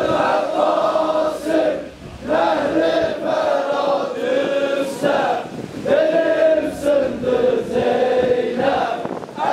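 A group of voices chanting an Ashura mourning lament together in long sung phrases, with a brief break about two seconds in.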